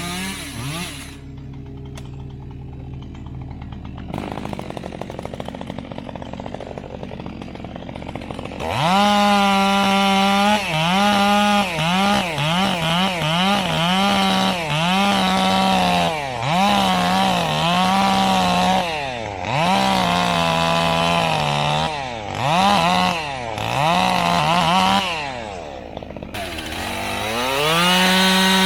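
Chainsaw engine running slowly at first, then from about nine seconds in at high revs, its speed dipping and recovering again and again, then rising again near the end.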